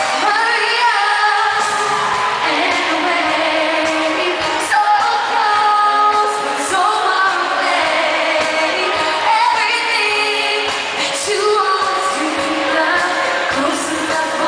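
A woman singing a pop song live over a loud band backing, heard from the audience in an arena.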